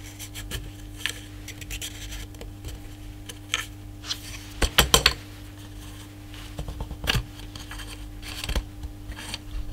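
Metal baffles being taken out of a PCP air rifle's barrel shroud by hand: scattered small clicks and scrapes, with a cluster of clinks about five seconds in.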